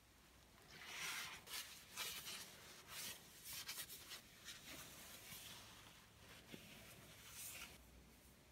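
Paper towel wiping and rubbing the metal barrel of a grease gun: a run of faint, scratchy wiping strokes that stop near the end.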